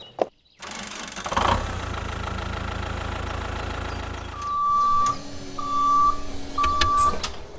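Tractor engine sound starting about half a second in and running steadily with a low rumble, then three short horn beeps near the end.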